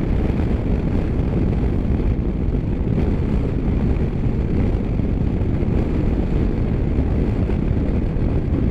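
KTM 1290 Super Adventure's V-twin engine running steadily at cruising speed, with wind noise on the microphone.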